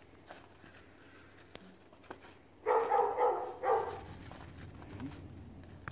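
Border collie barking three times in quick succession, about halfway in: a demand bark at a tennis ball being held up during fetch.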